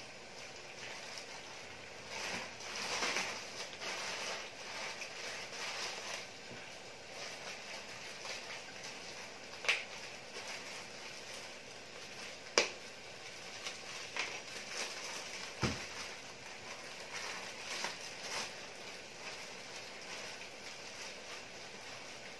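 Pork adobo simmering in a lidded skillet: an uneven sizzling, bubbling hiss that swells and fades, with three sharp pops along the way.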